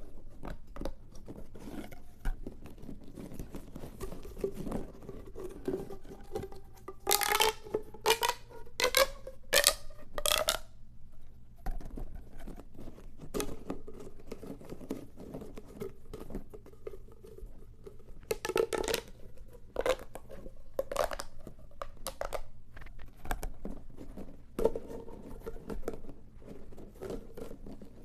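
Plastic pop tubes being stretched and squashed, their ribbed sections clicking and crackling, with louder runs of quick pops that rise in pitch about a quarter of the way in and again past the middle.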